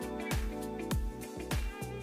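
Background music with a steady beat: a low drum hit about three times every two seconds under sustained chords.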